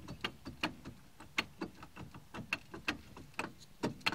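Front wheel hub and brake rotor clunking as they are rocked by hand on a worn-out wheel bearing, a quick irregular run of short knocks about four a second. The free play that makes the knocks is the sign of a failed bearing.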